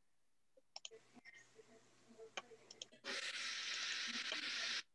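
Faint scattered clicks, then from about three seconds in a steady hiss of noise over the video-call audio line, cutting off abruptly near the end.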